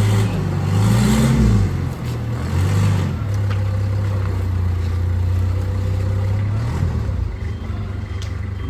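A vehicle engine running: it revs up and down for the first few seconds, then settles to a steady low drone.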